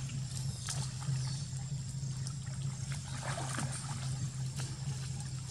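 Macaques wading and foraging in shallow muddy water: light splashing and trickling, with small knocks, over a steady low hum.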